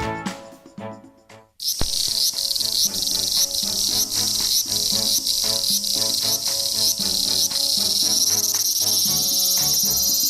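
Music fades out, and after a short gap a cicada's high, buzzing song starts abruptly and keeps going, with quieter music underneath.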